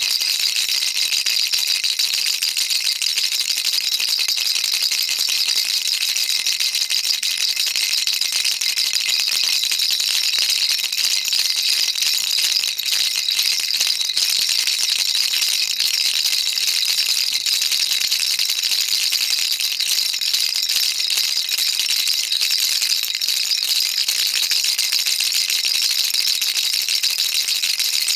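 Baby rattle shaken steadily and continuously, its beads making a dense, even, high-pitched rattle.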